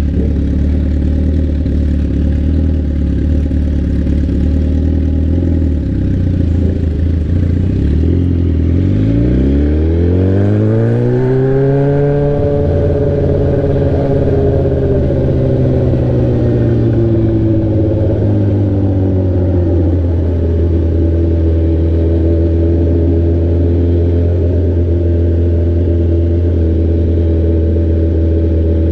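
Straight-piped sport bike engine running steadily at low revs, then revving up about eight seconds in. The pitch climbs sharply for a few seconds, then eases off gradually and settles into a steady cruise.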